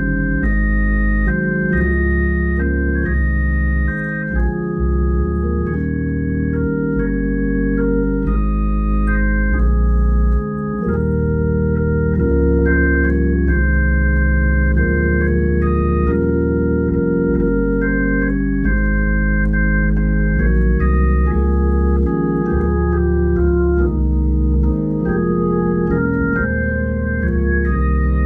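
Hammond organ playing held chords that change every half second to a second, over deep bass notes.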